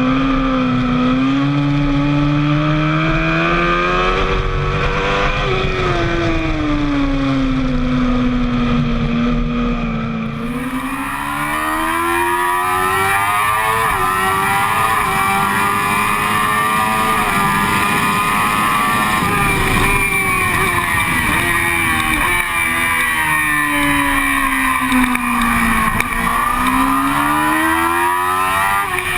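Sport motorcycle engine heard onboard at speed on a track, the revs rising and falling again and again as the rider accelerates, shifts gears and brakes. About ten seconds in the sound changes abruptly to another run, with the pitch climbing in steps through the gears.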